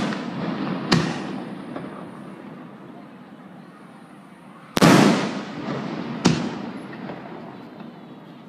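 Aerial firework shells bursting overhead: a bang about a second in, a louder one about five seconds in and another soon after it. Each bang is followed by a long echoing tail that fades away.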